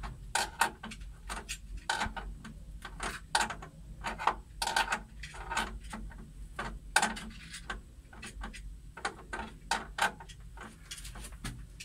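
Irregular light clicks and knocks, a few a second, from hands working small hard parts and tools at a table.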